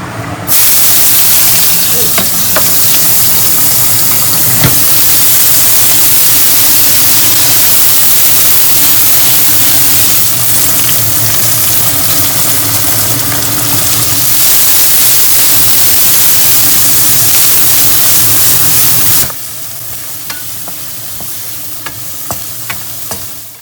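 Food sizzling loudly in a hot pan while spaghetti sauce is being cooked, with a few knocks of a utensil against the pan. The sizzle starts abruptly about half a second in and drops to a much quieter hiss near the end.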